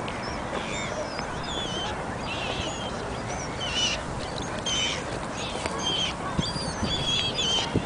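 Birds at a park pond calling: many short, wavering, high chirping calls that grow busier toward the end, over a steady rush of background noise.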